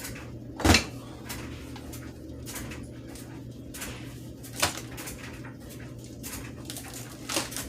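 Three sharp knocks or clatters of hard objects being handled and set down, the loudest about a second in, over a steady low hum.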